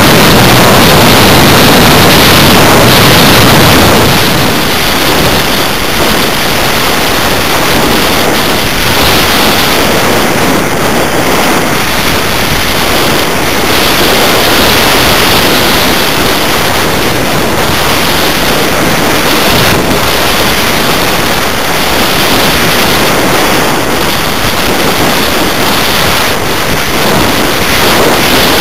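Airflow rushing over the onboard camera microphone of a 1/6 scale BAC IV model glider in flight: a loud, steady rush of wind noise that drops a little about four seconds in.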